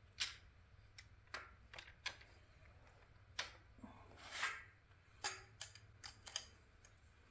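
Light metallic clicks and clinks, about a dozen at irregular intervals, as the bar and collet of a cam bearing removal tool are fitted into the front cam bearing of an engine block and a wrench is taken to the collet.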